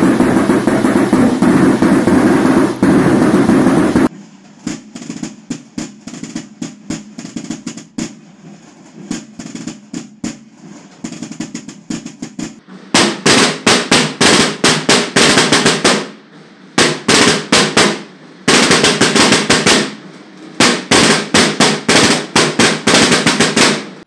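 Processional drums of the Lower Aragon Holy Week tamborada, beaten with sticks. A dense, loud drum roll runs for about four seconds, then a quieter stretch of separate strokes follows, and from about halfway in come loud rolls in bursts with short breaks between them.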